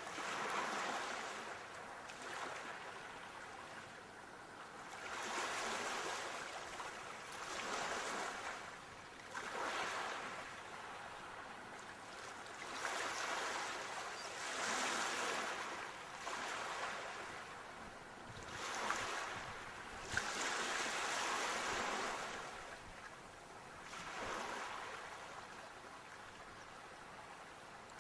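Sea waves breaking and washing in, each surge of surf swelling and fading every two to four seconds.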